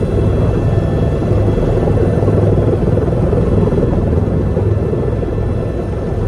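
Helicopter rotor and engine heard from inside the cabin: a loud, steady, heavy drone with a faint high whine over it.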